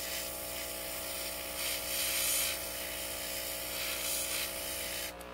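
OPAWZ airbrush kit running: the small compressor hums steadily while the airbrush sprays temporary ink with a hiss that swells about two seconds in and again around four seconds. The hum and hiss cut off near the end.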